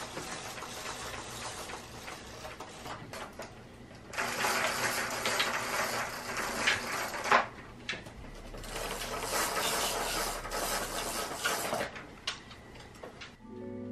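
Roller blinds being raised by their pull chains, the chain and clutch mechanism rattling and whirring in several long pulls with short pauses between, loudest from about four seconds in and again from about eight to twelve seconds.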